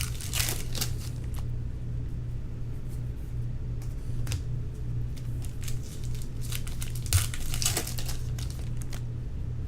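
Trading cards and packs being handled: crinkling and rustling in short bursts near the start and again about two-thirds of the way through, over a steady low hum.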